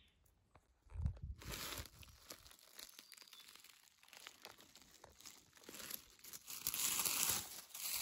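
Dry fallen leaves rustling and crackling as a hand brushes through the leaf litter, getting louder near the end. A brief low thump comes about a second in.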